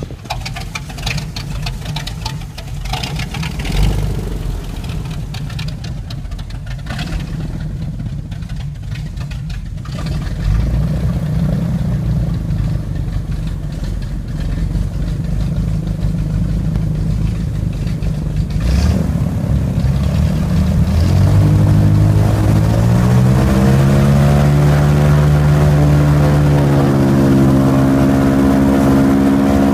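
Airboat engine and propeller running at a low rumble, then revving up about two-thirds of the way through, rising in pitch and loudness and settling into a steady loud drone as the boat picks up speed.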